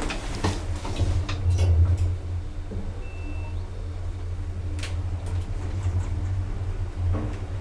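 Modernised Otis 2000 lift car travelling, a steady low hum from the running lift, with a few sharp clicks and knocks in the first two seconds and another near five seconds. A brief faint beep sounds about three seconds in.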